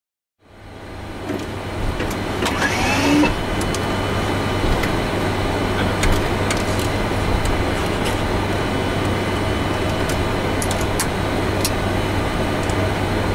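Flight-deck noise of a Boeing 747-400F taxiing: a steady hum and rush with scattered clicks and rattles, fading in from silence at the start. About three seconds in there is a brief whine that rises and falls in pitch.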